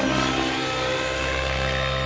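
O.S. 105 HZ-R two-stroke glow engine with a dual-glow-plug head and tuned pipe, running in a Raptor G4 radio-controlled helicopter in flight, a steady pitched drone. The engine is set up slightly on the rich side.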